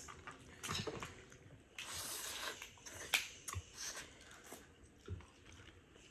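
Close eating sounds of several people at a seafood boil: chewing and biting, with scattered small clicks and crunches as shellfish is peeled by hand, and a short rustle about two seconds in.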